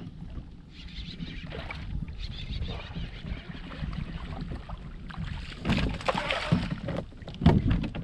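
Hooked bass thrashing and splashing at the surface beside a kayak while being played in, over a steady low rumble. The loudest splashes come about six and seven and a half seconds in, as the fish is brought to the boat.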